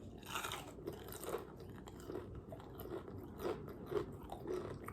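Close, crunching bites and chewing of Popeyes fried chicken, its crisp breaded crust crackling with each bite in an irregular string of crunches.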